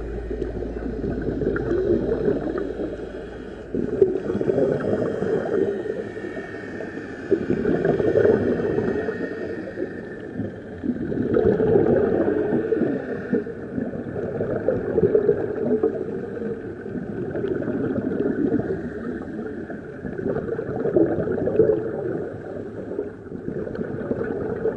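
Muffled underwater bubbling and water noise, swelling and fading every three to four seconds, heard through a camera's waterproof housing.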